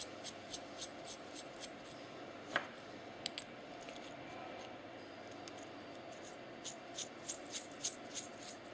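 Small metal clicks, about three or four a second, as an M5 ball joint is twisted by hand onto a threaded linkage rod. They stop for a few seconds in the middle and start again near the end.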